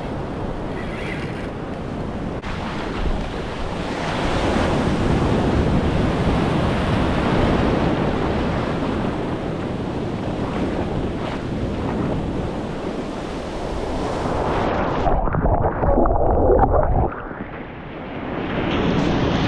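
Surf breaking and washing over the shallows in a continuous rush, with wind buffeting the microphone. About fifteen seconds in the sound goes muffled and drops briefly, then the wash comes back up.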